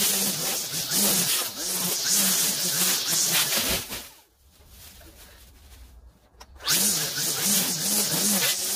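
Gas string trimmer cutting tall grass and weeds, its engine revving up and down in quick pulses. About four seconds in the throttle is let off and it drops to a low idle for a couple of seconds, then revs up again.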